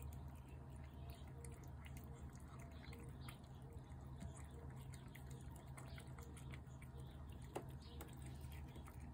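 Faint, irregular small clicks and smacks of a cat eating wet food from a plate, over a steady low hum.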